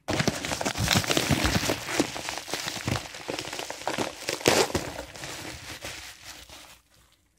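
Padded paper mailer envelope being opened and handled: dense paper crinkling and rustling with sharper crackles, fading out near the end.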